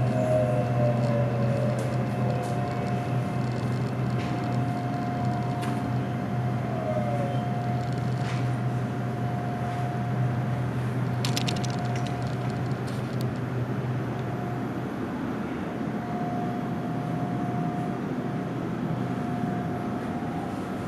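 SRT Red Line electric commuter train running, with a steady low hum and a high whine that dips in pitch a couple of times. A few light clicks come about halfway through.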